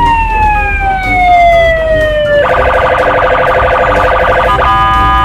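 Electronic police siren, loud: one long wail sliding slowly down in pitch, then about two seconds in switching to a fast pulsing yelp, broken briefly near the end.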